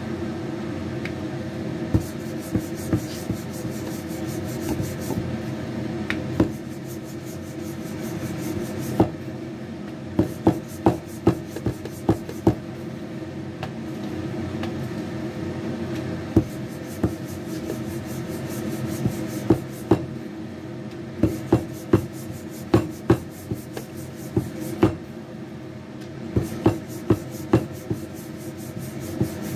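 Wooden rolling pin rolling out chapati dough on a board: rubbing, with many irregular sharp knocks and clicks as the pin is pushed, lifted and set down. A steady low hum runs underneath.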